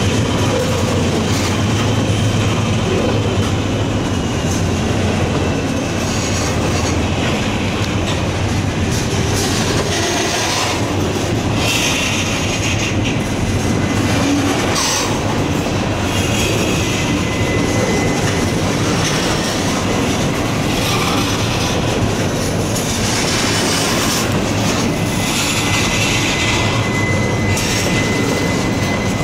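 Covered hopper cars of a phosphate unit train rolling past, steel wheels clacking over rail joints in a steady, continuous rumble. Bursts of high-pitched wheel squeal come and go throughout.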